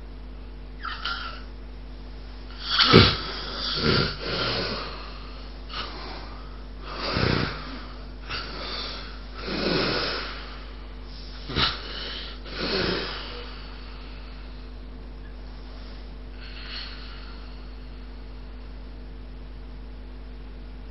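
A sleeping person snoring, a series of about ten irregular snores and snorts, the loudest about three seconds in. About thirteen seconds in the snoring stops, and no snore follows for the rest of the stretch.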